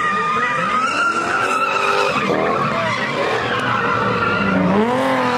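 Car tyres squealing in a long, wavering screech as a car slides and drifts through its own tyre smoke.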